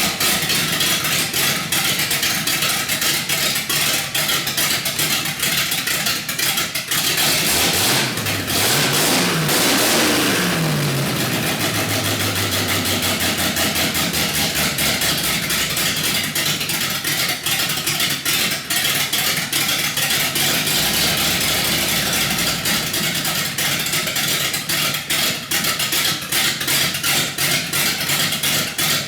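318 V8 with a big Comp Cams camshaft and high-compression domed pistons, running on an engine test stand through open exhaust manifolds with no mufflers. It is blipped up and down a few times in the middle, then settles back into a choppy, lumpy rough idle.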